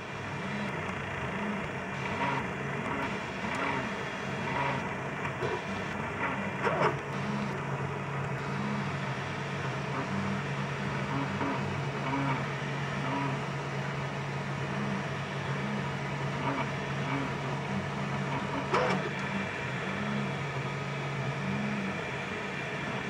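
Desktop FDM 3D printer running a print. Its stepper motors hum in low tones that shift and swell as the head and bed move, over an even whir. A few sharp clicks come about 7 and 19 seconds in.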